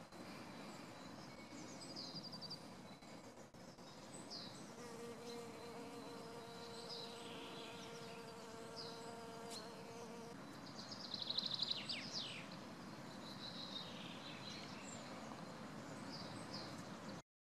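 Honeybee buzzing faintly while foraging at crocus flowers, a steady hum from about five to ten seconds in. Faint birdsong chirps throughout, with a louder rapid trill about eleven seconds in.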